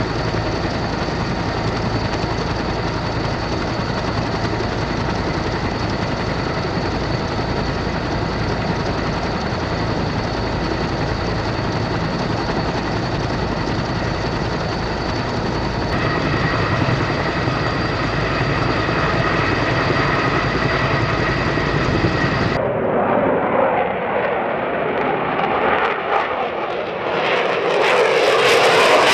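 Fighter jet engines of taxiing F-22A Raptors and F-35A Lightning IIs running with a steady high whine over a rushing roar, the tone shifting at edits along the way. Near the end a louder jet roar comes in as an F-22 passes in afterburner.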